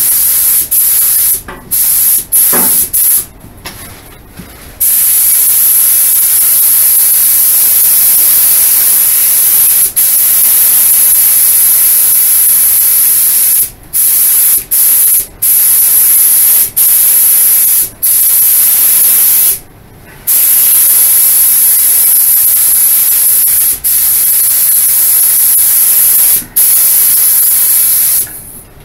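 Air spray gun laying a coat of clear over a freshly painted bumper: a loud, steady hiss of air and atomised paint. It comes in short spurts for the first few seconds, then in long passes broken by brief pauses.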